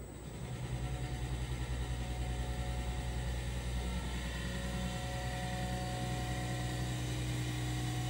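DCM3 diamond-cut wheel lathe taking a coarse cut across the face of an alloy wheel at 1/10-millimetre depth: a steady machining sound over a low hum, growing louder about half a second in and rippling quickly for the first few seconds. The even, consistent cutting sound is the sign of full contact across the whole face of the wheel.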